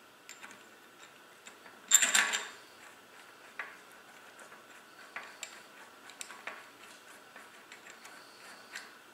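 Light metal clicks and ticks of hub parts and a hand tool on the axle of a Shimano coaster-brake hub as a nut is turned by hand, with one louder metallic clatter about two seconds in.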